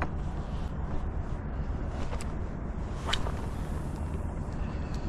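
Steady low outdoor rumble, with a few faint short clicks, the clearest a little over three seconds in.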